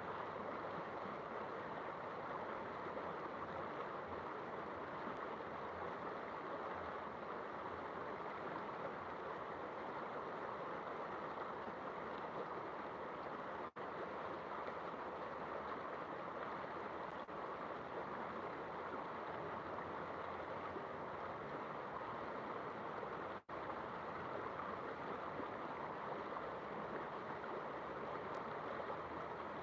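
Steady rushing of a flowing river, cut out twice for a split second.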